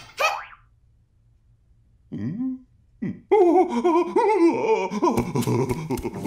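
Animated cartoon character laughing heartily and loudly for the last three seconds, after a brief vocal grunt; a short falling tone sounds at the very start.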